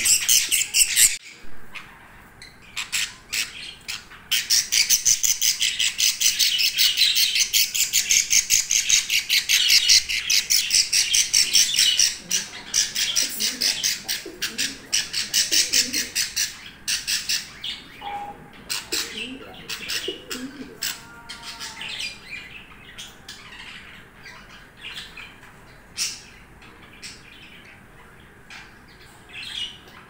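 Baby budgerigar chicks calling in a fast, dense run of short high chirps, which thins out about halfway through to scattered single calls.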